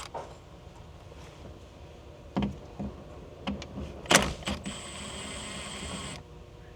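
Cordless power tool running for about a second and a half near the end, a steady high whine, unfastening the moonroof glass mounts. Before it come a few sharp clicks and knocks of tools and parts being handled.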